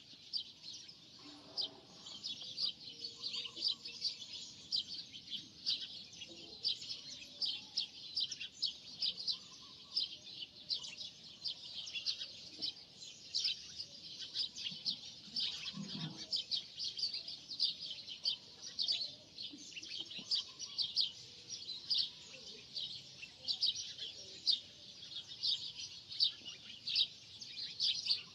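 Many small birds chirping and chattering at once, a dense, irregular stream of short high chirps with no pause. A brief low sound comes about halfway through.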